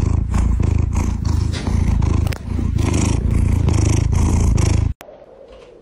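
Domestic cat purring loudly right at the microphone, a deep steady pulsing purr that cuts off abruptly about five seconds in.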